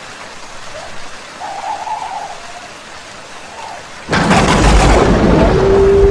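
Rain and thunderstorm sound effect: a steady patter of rain, then a sudden loud thunderclap about four seconds in that rolls on as a low rumble. A steady held tone comes in near the end.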